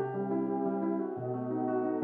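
Instrumental Moroccan chaabi-trap beat in a sparse passage: sustained chords over held bass notes, the bass moving to a new note about a second in, with no drum hits.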